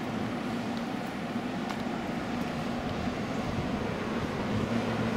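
MetroLink light-rail train at the station platform: a steady hum over a bed of outdoor noise. A lower hum joins and the sound grows slightly louder about four and a half seconds in.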